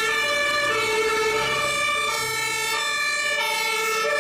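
Electronic two-tone siren of the hi-lo fire-engine kind, switching back and forth between a low and a high note, each held well under a second, steady and loud.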